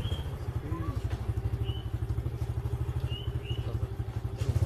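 Small motorcycle engine running steadily at low speed, with a fast, even low pulse. A bird chirps briefly a few times over it.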